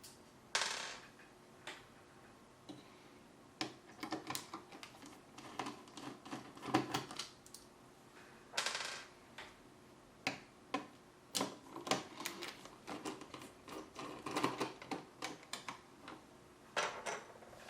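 Irregular small clicks and taps of a screwdriver working the screws of the stock AMD cooler-mounting bracket on the motherboard, with two short scraping rasps, one near the start and one about halfway through.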